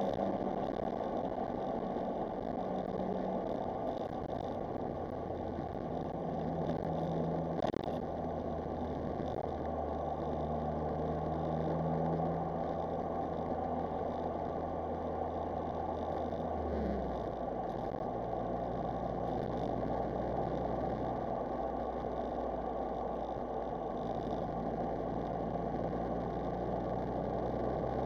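Smart Roadster Brabus's small turbocharged three-cylinder engine, running on freshly replaced coil packs and plug leads, pulling the car along with a steady rush of road noise. The engine note holds, shifts pitch a few times, and drops suddenly a little past halfway.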